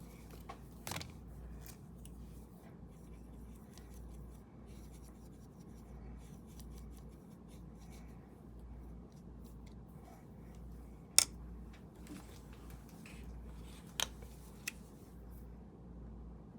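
A paintbrush working paint onto the surface in faint, scratchy strokes, with a few sharp taps about a second in, around eleven seconds in and twice near the end.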